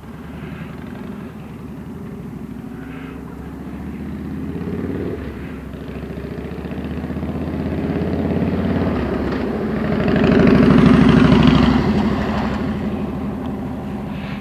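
Road traffic passing on the street: a vehicle's engine sound builds gradually, is loudest about ten to twelve seconds in, then fades.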